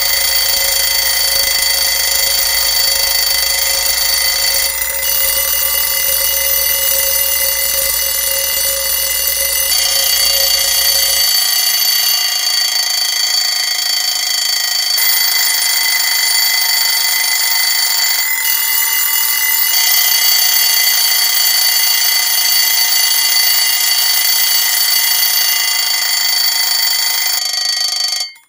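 Alarm clocks ringing loudly and without pause, several ringing tones layered together, with the mix shifting every few seconds. A low hum under them stops partway through, and the whole ringing cuts off abruptly near the end.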